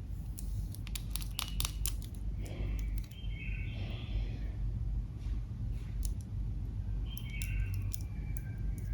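Makeup products and slime being handled close to the microphone: a quick run of sharp clicks and taps about a second in, then short squeaky crinkling sounds, over a steady low hum.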